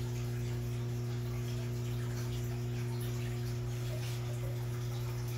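Aquarium air pump humming steadily, with air bubbles trickling and popping in the tank water.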